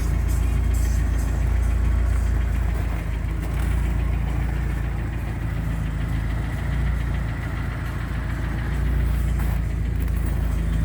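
Car engine idling cold, with the knock of a hydraulic valve lifter (lash adjuster) over the steady engine drone.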